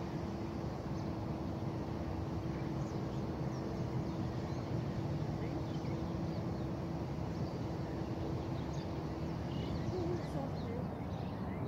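Outdoor ambience: a steady low rumble with a steady hum that wavers and fades about ten seconds in, and faint bird chirps that become more frequent near the end.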